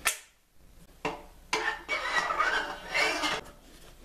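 Metal-on-metal handling of a steel motorcycle tire changing stand: a sharp click at the start and a knock about a second in, then about two seconds of clattering and scraping as the magnetic guide pieces are moved along the frame and the wheel is set.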